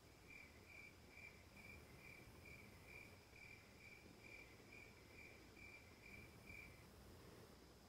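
A cricket chirping faintly and evenly, about two and a half chirps a second, stopping about seven seconds in; otherwise near silence.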